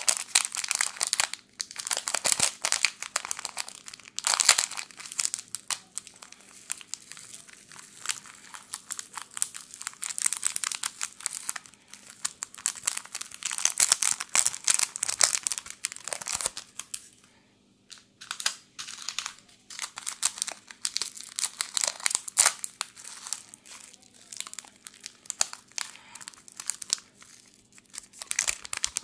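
Small plastic seasoning sachets crinkling and tearing as they are ripped open and shaken out over a pizza. The crackling comes in bursts, with a short pause about two-thirds of the way through.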